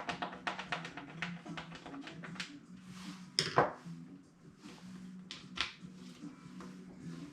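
Sharp clicks and taps of handling a composite glider wing and its flap linkage, with one loud click about three and a half seconds in, over a low on-and-off hum.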